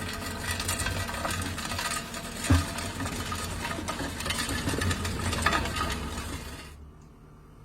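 Road-repair work: machinery running with scraping and metallic clinking, and one thump about two and a half seconds in. The sound drops away abruptly near the end.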